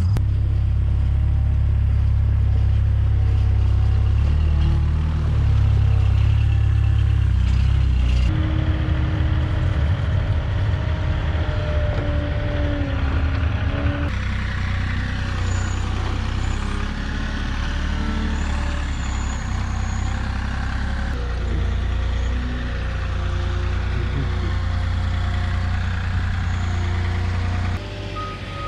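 Engine of a truck-mounted forklift running steadily while it carries a pallet load of wood pellets, with a strong low drone that changes level abruptly a few times.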